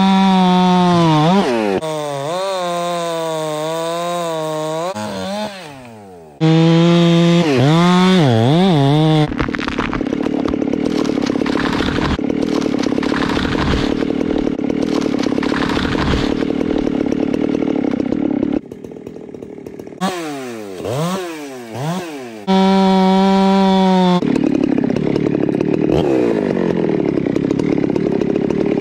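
Chainsaw engine revving up and down with throttle blips and running at full throttle, with a steadier, rougher stretch in the middle while it cuts through wood. The sound changes abruptly several times.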